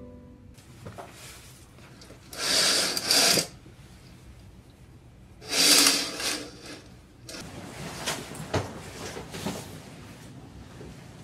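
Curtains pulled open along their ceiling rail, twice, each a scraping swish about a second long. Softer rustling and a few light knocks follow.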